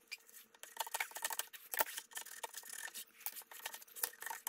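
Height gauge scriber scratching layout lines into a steel cleaver's bolster, with metal tool parts clicking and sliding on a granite surface plate: a quiet, irregular run of short scratches and clicks.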